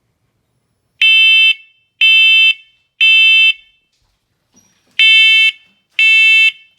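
Combination smoke and carbon monoxide alarm sounding under its test button: loud, high-pitched beeps in the three-beep smoke pattern. Three half-second beeps a second apart, a pause, then the next set of three begins.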